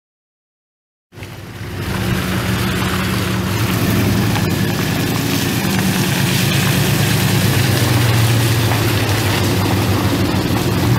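2008 Ford F-150's 4.6-litre V8 gas engine running steadily at idle, starting abruptly about a second in.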